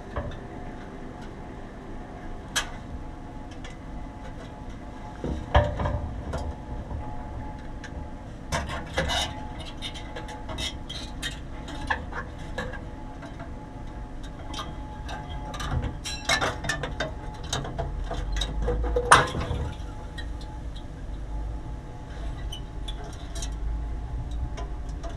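Scattered clinks, clicks and knocks of hard objects being handled, over a steady hum with a few steady tones.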